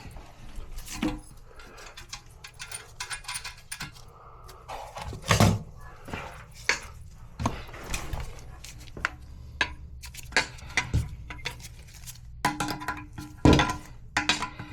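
Irregular clicks, clinks and knocks of hard parts and tools being handled while replacing a toilet flush valve, with two louder knocks, one about five seconds in and one near the end.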